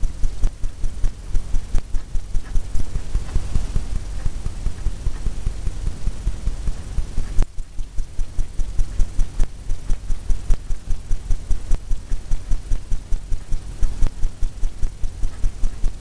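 Paintbrush tapped rapidly against a stretched canvas, about three dull thumps a second, to stipple on the foam of a breaking wave; the taps break off briefly about halfway, then carry on.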